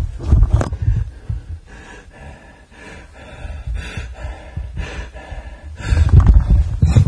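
A man breathing hard and gasping, short breaths about once a second, with loud low rumbling at the start and again near the end.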